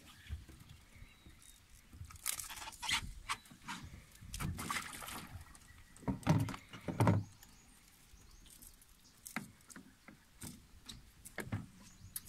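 Irregular knocks and clatter on a small boat's hull while fishing gear is handled, with a few heavier thumps clustered in the first half.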